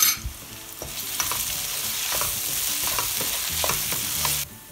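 Chopped red onions sizzling in hot oil in a metal pan while a wooden spatula stirs them, with scattered scrapes and taps. The sizzle builds about a second in and cuts off suddenly near the end, after a sharp knock at the very start.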